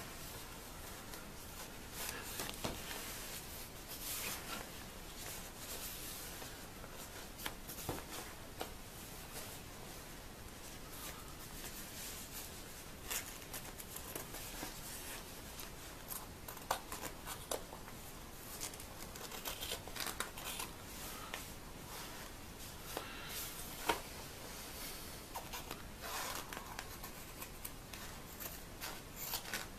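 Small scissors snipping at the stitching where the hood joins a quilted nylon down jacket, in irregular short clicks, with the slick shell fabric rustling and crinkling as it is handled.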